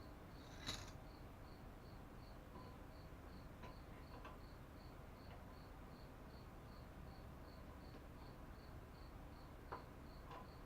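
Near silence with a faint, high chirp repeating evenly about three times a second, like a cricket, and a few small clicks of handling, the loudest about a second in.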